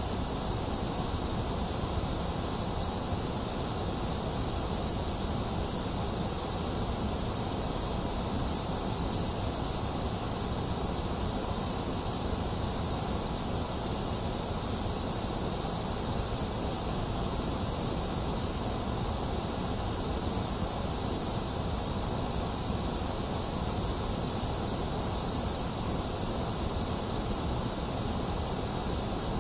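A box fan running steadily, mixed with falling rain, with no thunder: an even, unchanging noise, a low rumble under a bright hiss.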